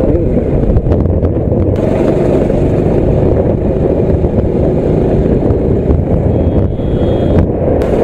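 Motorcycle riding along at steady speed: the engine runs evenly under a dense rush of wind noise on the on-board microphone.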